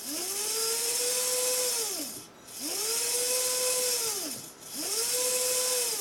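A VEX DC motor, its speed set from a joystick through an Arduino, whining as it spins up, holds speed for about two seconds and winds back down, three times in a row. A hiss runs over each spell at speed.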